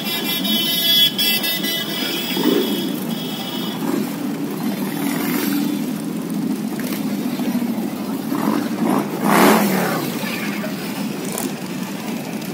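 Motorcycle engines running in street traffic, with one growing louder as it passes about nine and a half seconds in.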